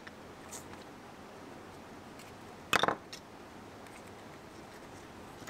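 Handling noise of a leather sheath and a wooden-handled knife on a wooden workbench: a short cluster of crackly knocks and rustles about three seconds in, over faint room tone.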